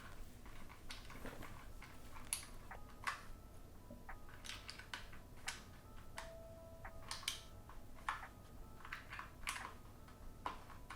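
Faint, irregular plastic clicks of keycaps being pressed onto the Cherry MX Brown switches of an Akko 3068 keyboard.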